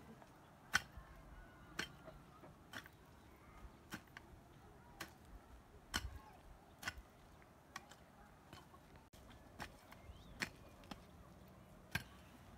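A long-handled hoe chopping into grassy soil, a sharp strike about once a second as the ground is dug over.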